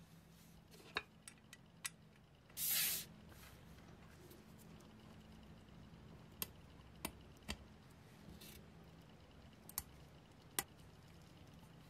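Small hand-work sounds: a scattering of light, sharp clicks and taps over a low steady hum, with one short hiss-like burst nearly three seconds in.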